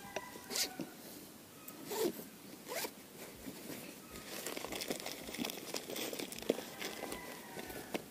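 Zipper on a fabric bag pulled in several short rasping strokes, then a few seconds of rustling as hands rummage through the bag's contents.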